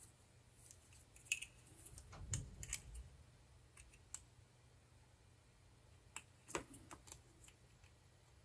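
Faint, scattered metallic clicks of pliers gripping and bending down the sheet-metal clamping tabs of a potentiometer's casing, the sharpest about a second in, around two seconds in and past six seconds.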